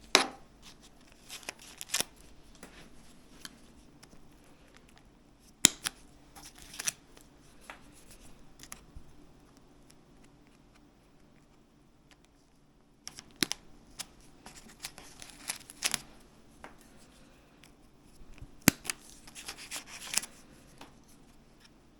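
Plastic zip ties being cut with a hand cutting tool: a series of sharp snips a few seconds apart, with rustling and scraping of wires and plastic around them.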